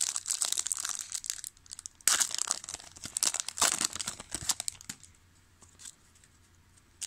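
Foil wrapper of a 2000 Topps Season Opener football card pack being torn open and crinkled in the hands, with a sharp tear about two seconds in. The crackling dies away after about five seconds.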